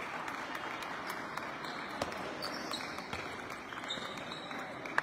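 Table tennis ball clicking on bats and table, a few sharp clicks, one about two seconds in and a louder one at the end, over the steady din of a large sports hall with many tables in play.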